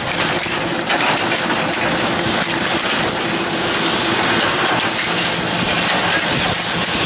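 Steady hum of a Tatrapoma surface ski lift running at its boarding gate, with skis crunching and scraping on packed snow and scattered small clicks.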